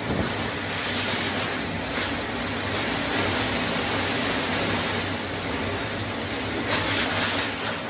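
Cyclone-force wind and driving rain: a continuous rush of noise that swells and falls in gusts, with a strong gust near the end.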